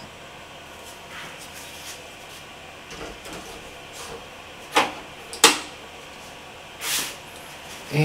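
Hard drive trays being handled and pushed into the bays of a Synology DS1522+ NAS: a few short clicks and knocks, three louder ones between about five and seven seconds in.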